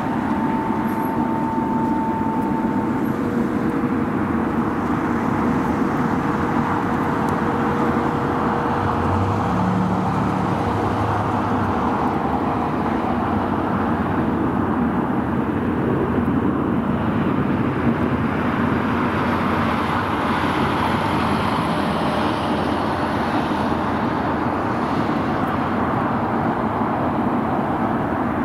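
Steady outdoor roar of airport and road traffic, even in level throughout, with faint steady whining tones that come and go.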